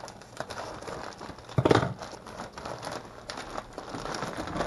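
Plastic bag of shredded cheddar cheese crinkling as it is handled, with one louder rustle about a second and a half in.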